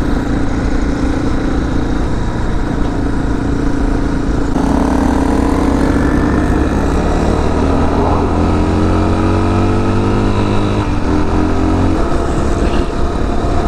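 Honda CRF250L's single-cylinder engine running on the road, with wind rushing over the helmet-mounted camera; about a third of the way in the engine note climbs steadily as the bike accelerates in gear.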